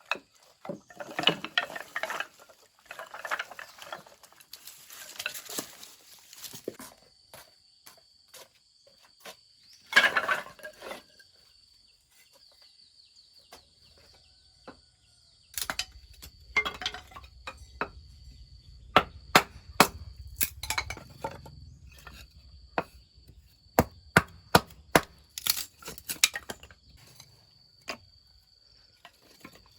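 Work sounds of handling and knocking wood: clattering and rustling in the first few seconds, then many sharp separate knocks over a low rumble from about halfway. A steady high insect buzz, like crickets, runs behind.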